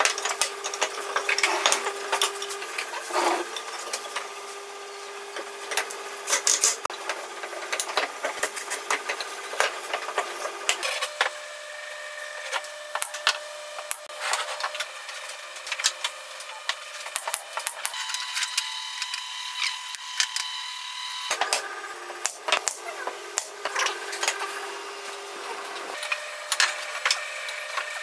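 Wooden slats knocking, clacking and sliding against each other and against a wooden workbench as they are handled and fitted together: many sharp knocks over a steady background hum.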